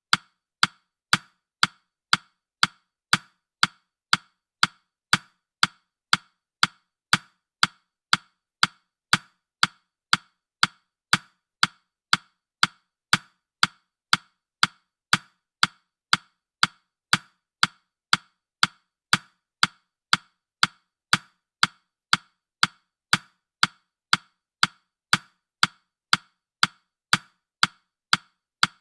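Countdown timer's ticking sound, a steady run of short, sharp clock-like ticks at about two a second.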